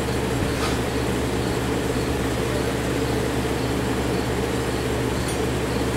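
Steady mechanical hum of a machine running, a low even drone that does not change.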